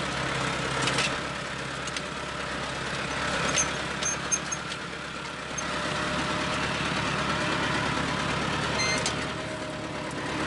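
Tractor engine running steadily while pulling a tine cultivator through grassy soil, with a few sharp clanks from the implement.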